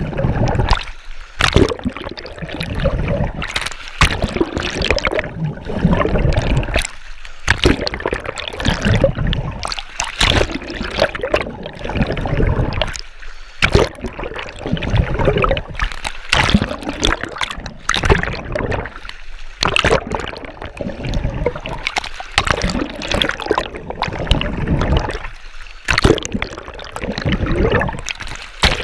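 Water churning and bubbling around a camera held close in the water as a swimmer's arms stroke through it, with splashes and brief lulls every few seconds.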